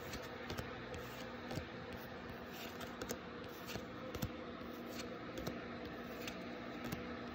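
Faint handling of a Pokémon booster pack and its trading cards: soft scattered clicks and rustles over a low steady hum.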